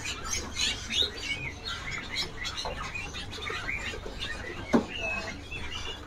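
Many small caged birds chirping and twittering in short, overlapping calls, with a single knock near the end.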